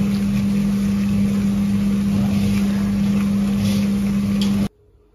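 Electric stirring pot with rotating paddle arms churning ground chili seeds: a steady motor hum over the rushing scrape of the paddles through the seed, stopping abruptly near the end.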